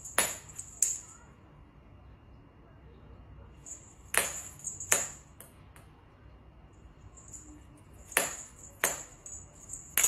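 Sharp taps with a brief high metallic ring from a wire-mounted feather cat teaser toy being batted about, striking a tile floor. They come in pairs about three quarters of a second apart, roughly every four seconds.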